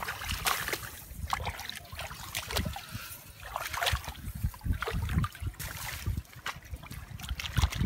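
Hands splashing and sloshing in shallow muddy water, irregular splashes while groping for fish by hand.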